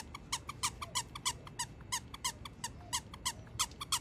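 Squeaker inside a plush dog toy squeezed over and over, giving a fast, even run of short high squeaks, about five or six a second.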